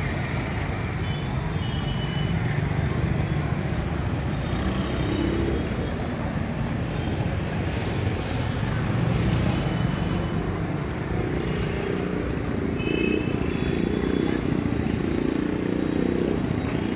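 Street traffic: auto-rickshaw and motorcycle engines running, making a steady rumble with no one close by speaking.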